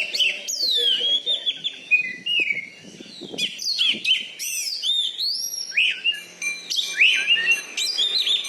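Oriental magpie-robin (kacer) singing a continuous, varied song of quick whistled notes that rise and fall, phrase after phrase with hardly a break.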